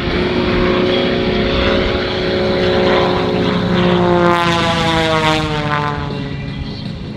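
Aerobatic propeller plane's piston engine running at high power, then flying close past about four seconds in, its pitch falling as it goes away.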